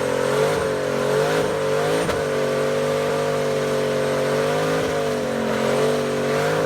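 A vehicle engine running steadily, its pitch wavering slightly up and down a few times as if blipped lightly.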